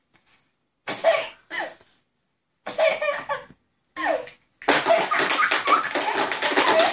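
A toddler laughing: short separate bursts of giggling, then from about four and a half seconds in a long unbroken run of hearty laughter, with a bunch of keys jingling over it.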